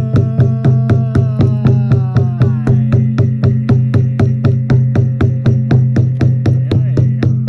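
Music: a steady low drone under a fast, even percussive beat of about four strokes a second, with gliding tones that slide downward in the first few seconds.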